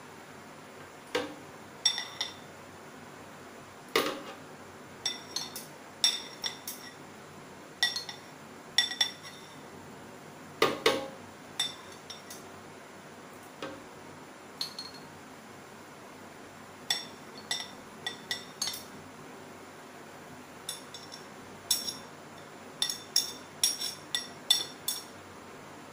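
Metal kitchen tongs clinking against a glass bowl and the rim of a plastic mixer-grinder jar while blanched spinach is transferred: irregular sharp clinks with a short ring, often two to four in quick succession, with pauses between.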